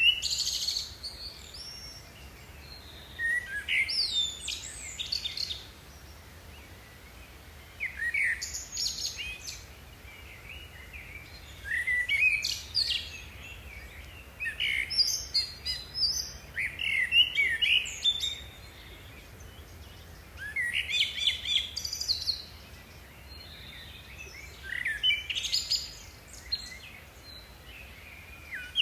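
A songbird singing in short, quick, chirping phrases, a new phrase every few seconds.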